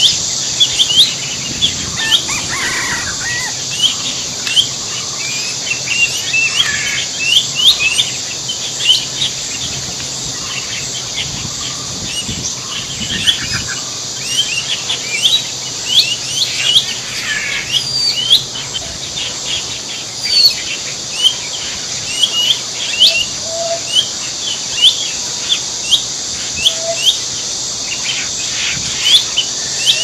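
Many short, quick bird chirps, some sliding upward, scattered over a steady high-pitched insect drone.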